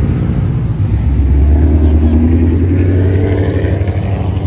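Car engine running close by, its low rumble growing louder about a second in and easing off near the end.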